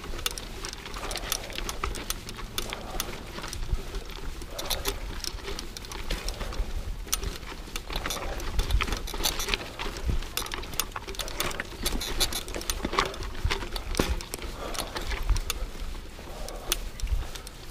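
Mountain bike rattling over rocky, gravelly singletrack: a dense, uneven run of clicks and knocks from the bike and its chain as the tyres go over the stones, over a low rumble.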